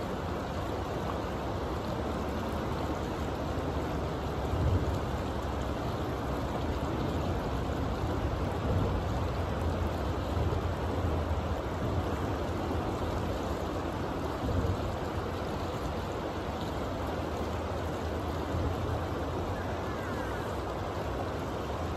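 Fast river current rushing over rocks and riffles, a steady water noise, with a few brief low bumps.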